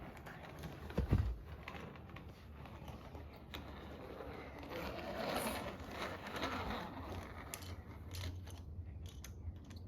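Small plastic toy monster truck rolling down a homemade toy track, with a dull thump about a second in and scattered small clicks and knocks.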